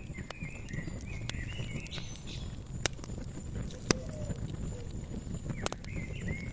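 Wood fire crackling, with frequent sharp pops (two louder ones about three and four seconds in) over a low steady rumble. Small birds chirp in the background through the first two seconds and again near the end.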